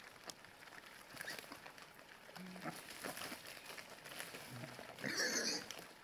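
Wild boar and their striped piglets feeding on scattered grain: steady crunching and snuffling at the ground, with a couple of soft low grunts and a short harsh call about five seconds in.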